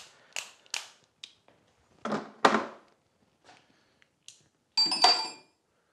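Metal tools being handled, a series of knocks and clatters, ending about five seconds in with a metal tool clanking down and ringing briefly.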